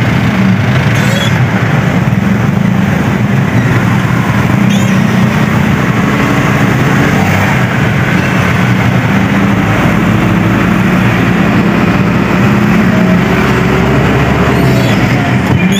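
Motor vehicle engine and road noise heard from inside the cab while driving, a loud, steady low drone, with a faint tone slowly rising in pitch in the second half.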